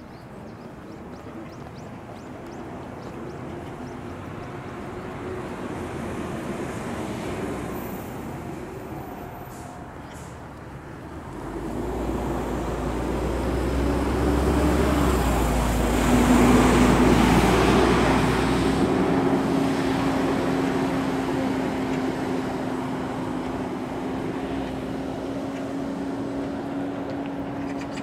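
Road traffic: a heavy motor vehicle's engine and tyres grow louder, with a deep rumble about halfway through as it passes close, then ease off. A steady engine hum carries on to the end.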